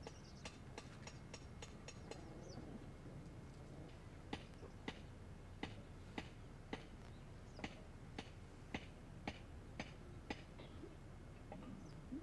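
A series of sharp ticks over a low background hum. There is a quick run of about seven in the first two seconds, then about eleven louder ones, evenly spaced at about two a second, from about four seconds in to about ten seconds in.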